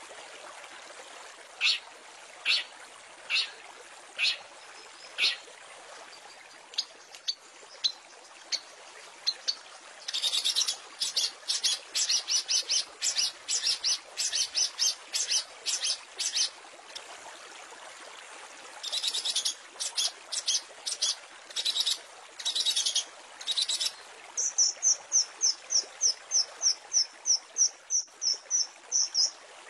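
Long-tailed shrike (cendet) song: scattered sharp, harsh calls, then dense bursts of rapid notes, and in the last few seconds a fast run of repeated high notes, about three a second. A steady hiss runs underneath.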